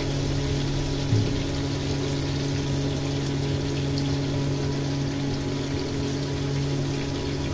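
A steady low mechanical hum over a hiss, like a small electric motor or pump running, with a soft knock about a second in.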